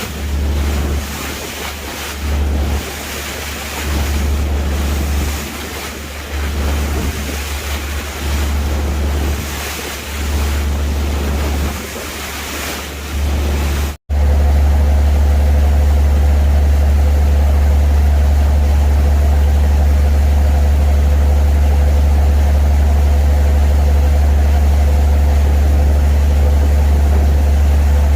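Sea waves and gusting wind, the wind buffeting the microphone in uneven surges. About halfway through, a cut to a steady, louder engine drone with a constant low rumble.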